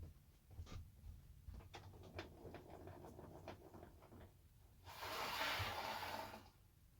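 Light clicks and taps of wooden pieces and hardware being handled, then a louder scraping slide lasting about a second and a half near the end.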